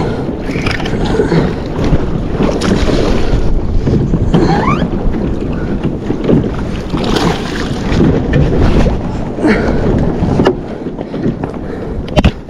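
Wind buffeting the microphone over water sloshing around a sea kayak, with a few sharp clicks near the end.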